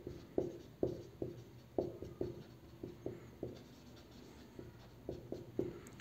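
Marker pen writing on a whiteboard as words are lettered onto a graph: a series of short separate strokes, about two a second, that thin out partway through and pick up again near the end.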